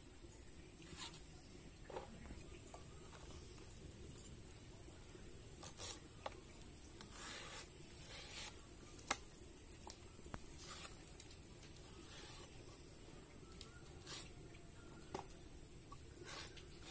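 A knife cutting long purple brinjals (eggplants) held in the hand: quiet, scattered short cuts and scrapes through the flesh and skin, with one sharper click about nine seconds in.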